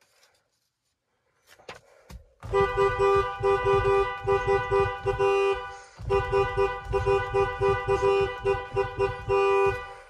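Chevrolet Impala's car horn honked in a quick rhythm of short toots and longer held blasts, played like a tune. There is a brief break about six seconds in before the honking resumes.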